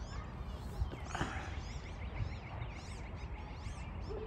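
Birds chirping: a quick series of short, high, up-and-down chirps over a low steady background rumble.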